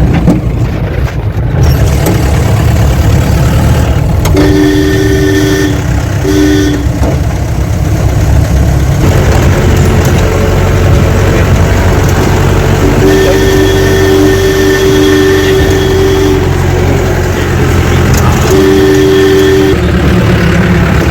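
Off-road jeep's engine running loud and steady on a bumpy dirt road, heard from inside the vehicle. A steady two-note tone sounds four times over it, the longest for about three seconds.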